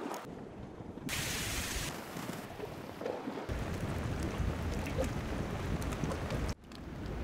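Wood campfire burning: a hiss of flames about a second in, then faint crackling under a low wind rumble on the microphone, which cuts off sharply near the end.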